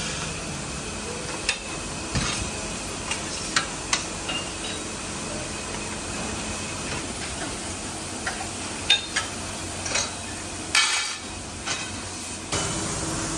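Metal parts being worked: scattered sharp metallic knocks and clinks, irregularly spaced, over a steady hiss, with a short louder burst of hiss near the end.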